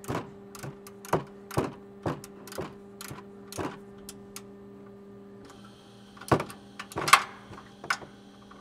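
Ratchet wrench clicking in a steady rhythm of about two strokes a second while a bolt on a bumper-mount bracket is run in, then two louder metal knocks from the tool and bracket about six and seven seconds in, over a faint steady hum.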